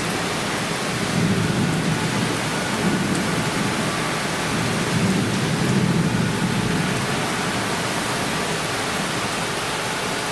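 Torrential downpour hissing steadily, with rolling thunder swelling twice: about a second in and again around five to seven seconds in.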